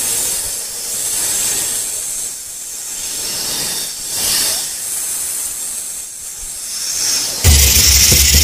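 Snake hissing sound effect: a loud breathy hiss that swells and fades several times. Music with a heavy bass beat cuts back in near the end.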